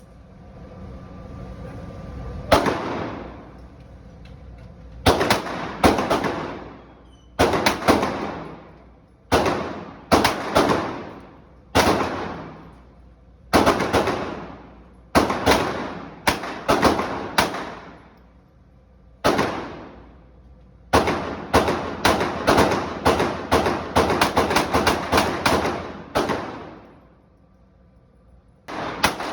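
Gunfire on a shooting range: single shots a second or two apart, each followed by a ringing echo, then a faster string of a dozen or more shots about two-thirds of the way in.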